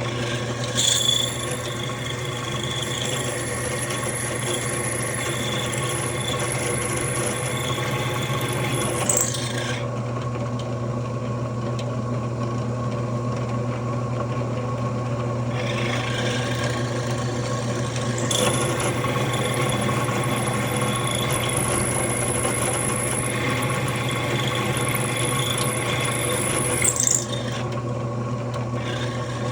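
Floor-model drill press running with a steady motor hum while a half-inch bit cuts into a solid aluminum hand wheel, a high rasping, squealing cutting noise. The cutting noise runs in two long stretches, stopping for about six seconds in the middle while the motor keeps running.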